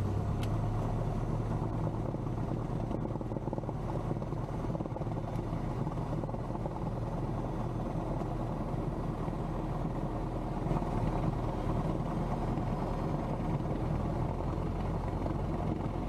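Cessna 172M's four-cylinder Lycoming engine and propeller running steadily at low power, heard from inside the cabin as a low, even drone while the plane rolls along the runway.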